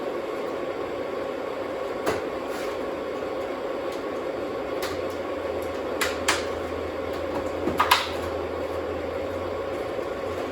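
O gauge Lionchief Santa Fe model train running on its track: a steady whir with a held tone. A few sharp clicks and knocks come through it, and a low hum joins about halfway.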